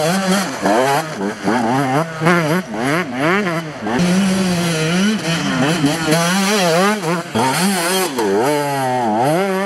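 Enduro motorcycle engine revving hard, its pitch rising and falling over and over as the rider works the throttle and gears.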